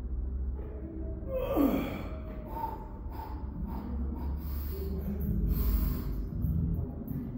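A lifter's hard, straining breaths under a heavy barbell during a slow eccentric rep. About a second and a half in, a sharp gasp turns into a short strained voice sound that falls in pitch, followed by heavy exhales.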